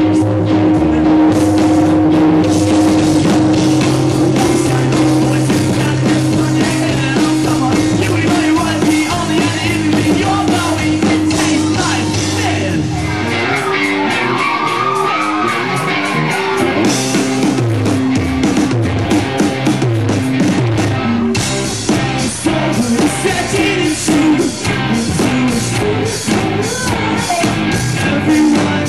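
Rock band playing live, with electric guitars, bass, drums and singing, recorded from the crowd. About two-thirds of the way in, the drums pick up a dense, steady beat.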